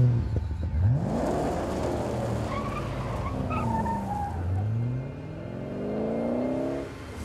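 A car engine revving hard as the car pulls away, its pitch climbing through the gears in two rising sweeps, the second ending a little before the end.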